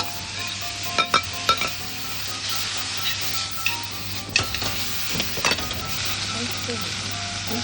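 Cowpeas and meat sizzling as they are stir-fried in a frying pan, a steady hiss broken by several sharp clicks of the utensil against the pan.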